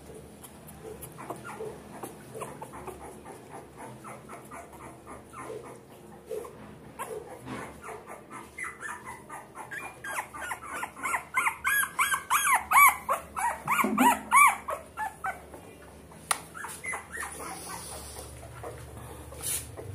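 Very young border collie puppy whimpering and squealing: a rapid string of short, high cries, several a second, loudest around the middle, with fainter whimpers before and after.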